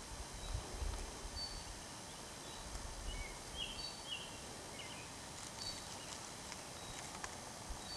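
Quiet woodland ambience with a bird giving short, high chirps every second or two, and a few faint clicks in the second half.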